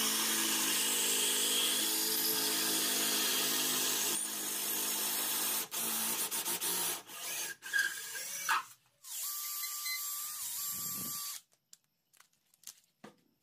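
Cordless drill spinning a thin wooden rod through a hole in a wooden block, the rod rubbing in the hole. The motor runs steadily, then in short stop-start bursts, then runs again and stops about eleven seconds in. A few light wooden clicks follow.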